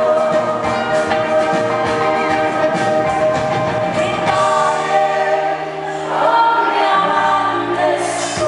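Live band music with singing: acoustic guitar, electric guitar and keyboards under long held sung notes, recorded from the audience in a large hall.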